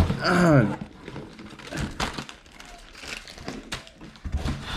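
Plastic packaging crinkling and rustling as it is handled, with scattered small clicks and taps, after a short drawn-out vocal "uh" at the very start.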